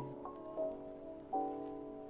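Soft background music: gentle held chords that change every second or so.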